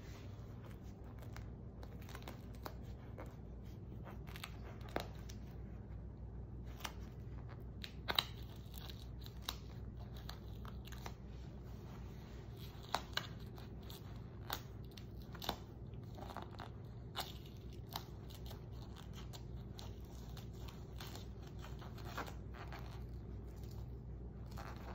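Tegaderm transparent film dressing being slowly peeled off by nitrile-gloved fingers: scattered small crackles and clicks of the adhesive film and plastic, over a steady low hum.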